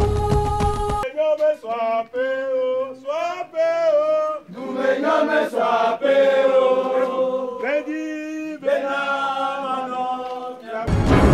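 Group of voices singing a chant together without accompaniment. Backing music plays for about the first second, then cuts off, and comes back in just before the end.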